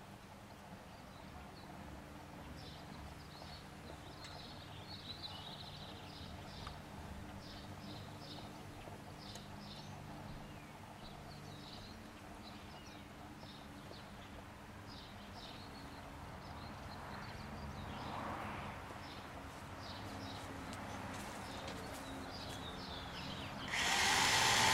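Songbirds chirping in quick short notes over a low steady hum of honey bees working weeping cherry blossoms. Near the end a loud rushing noise suddenly cuts in.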